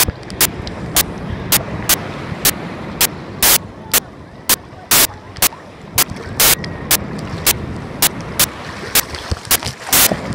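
Sea surf churning and washing around a phone held in the water, with sharp crackling pops about twice a second as water splashes onto the microphone.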